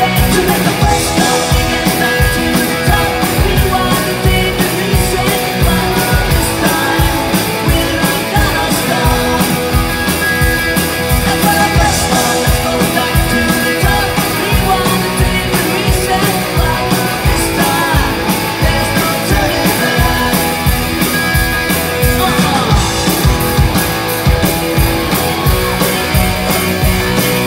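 Live rock band playing loud: electric guitars and a drum kit keeping a steady beat, with a woman singing lead.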